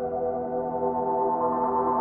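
Ambient background music of slow, held synthesizer-like tones.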